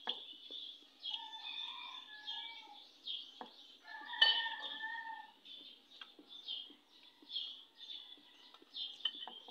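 Birds chirping steadily, many short high chirps a second, with a couple of longer held calls. A few light clicks of a metal spoon against a ceramic bowl, the loudest about four seconds in.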